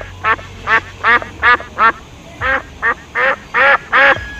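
White duck quacking repeatedly: about ten short quacks in quick runs of two or three.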